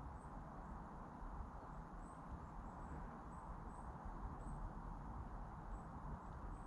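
Quiet outdoor ambience: a steady low hiss with faint, short high chirps recurring on and off.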